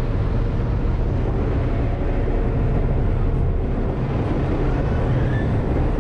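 Car ferry under way: its engines drone steadily in a low rumble, with water rushing along the hull in the wake.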